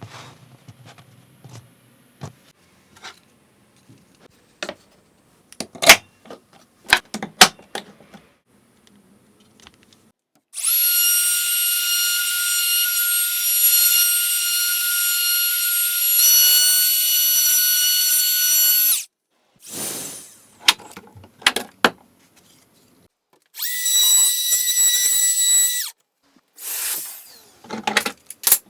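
Scattered knocks and clicks of wood and tools being handled. Then a power drill runs with a steady whine for about eight seconds, its pitch stepping once partway through, followed by three shorter runs near the end.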